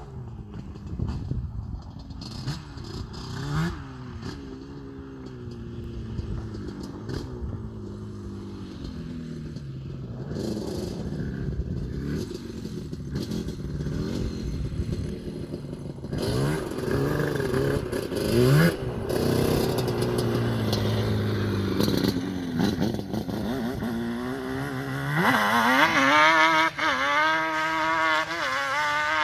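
Yamaha Banshee quad's twin-cylinder two-stroke engine, bored out to 390cc and fitted with Pro Circuit expansion-chamber pipes, revving up and down over and over. The revs climb loudest and highest near the end.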